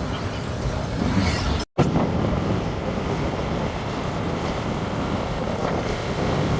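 Wind rushing over the microphone with road noise from a moving vehicle, a steady dense rush that cuts out for an instant a little under two seconds in.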